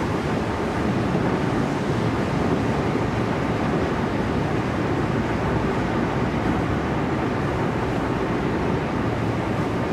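Cabin running noise of a Toei 10-300 series commuter train: a steady rumble of wheels on rail and car body at an even speed, with no rise or fall in pitch.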